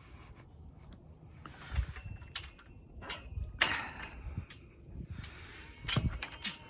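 Scattered clanks and knocks of a pen gate or door and its latch being worked, to let the sheep out, with the loudest knocks about two, three and a half and six seconds in.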